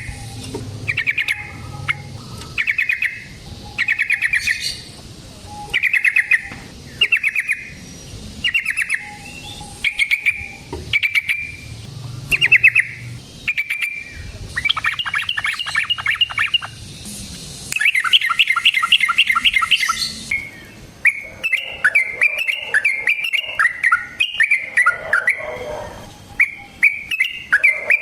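Yellow-vented bulbul singing: short bubbling phrases about once a second, then two fast trilling runs, then a denser run of chattering phrases near the end.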